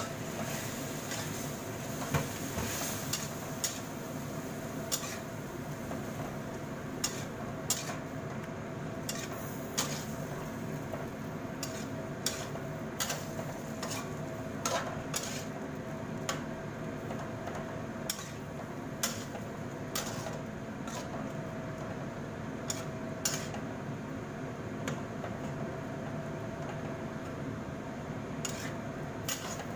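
Metal spatula scraping and clinking against a metal wok while tomato and scrambled egg are stir-fried, with irregular sharp clinks about every second over a steady sizzle.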